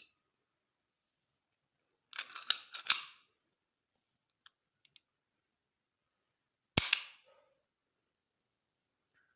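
Pistol firing: a rapid string of about four shots around two seconds in, a few faint clicks, then one more shot about seven seconds in.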